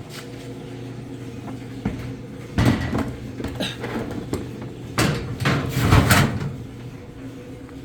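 Metal tool-chest drawer being pulled open with the tools inside clattering: a clank about two and a half seconds in and a run of louder clanks from about five to six seconds in.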